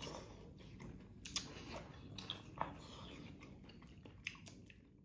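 People chewing food at a meal, with a few sharp clicks of eating utensils scattered through.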